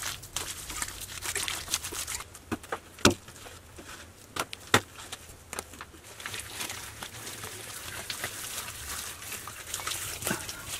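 Hands smearing and smoothing wet plaster over a curved shaft wall, with scraping and rubbing throughout. Three sharp knocks stand out between about three and five seconds in.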